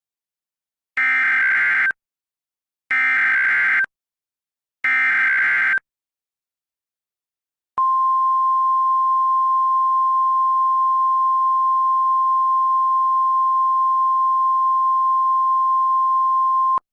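Mock NOAA Weather Radio Emergency Alert System signal: three buzzy SAME digital header bursts, each about a second long with a second between them, then the steady 1050 Hz weather radio alert tone held for about nine seconds before it cuts off suddenly. The sequence signals an incoming warning.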